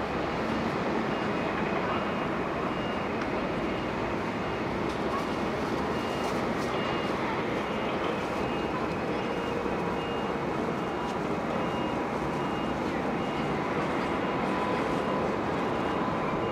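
Airbus A350-900's Rolls-Royce Trent XWB engines at takeoff thrust during the takeoff roll, heard as a steady distant jet roar that grows slightly louder near the end as the aircraft lifts off. Over it a reversing alarm sounds in evenly spaced high beeps.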